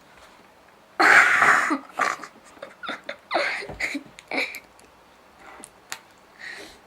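A person coughing: one harsh cough about a second in, then several shorter coughs and throat sounds.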